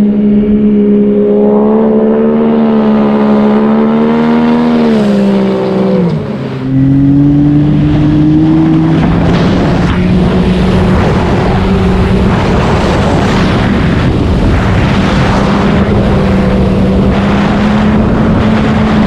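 Turbo Yamaha Sidewinder snowmobile engine held at high revs with a steady pitch, which drops sharply about six seconds in. Then a snowmobile runs at speed over snow, its engine steady under heavy wind rush on the microphone.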